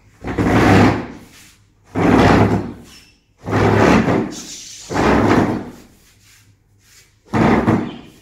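Kitchen cupboard doors and drawers being opened and shut in a search for butter: five loud bangs and rattles, each lasting under a second, spread evenly across the few seconds.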